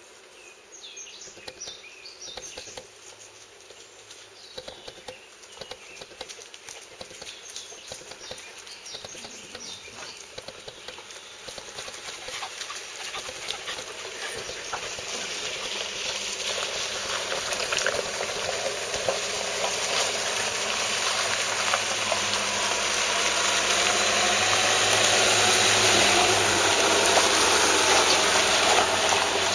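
Toyota Hilux with the 3.0 D-4D turbodiesel driving up a rocky dirt track, its tyres crunching over stones and its engine hum growing steadily louder as it approaches and passes close by near the end.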